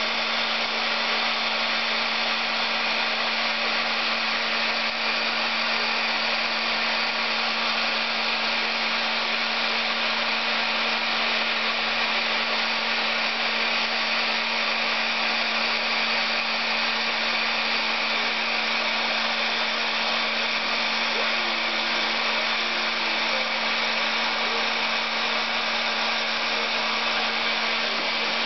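Electric heat gun with a flat nozzle running steadily, blowing hot air onto edge-banding tape: a constant rush of air over a steady low hum.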